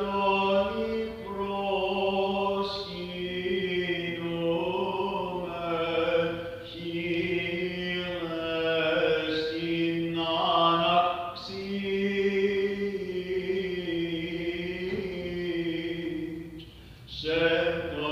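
Byzantine chant: a slow melismatic melody sung on long held notes over a steady low drone (the ison), with a short break near the end before the next phrase begins.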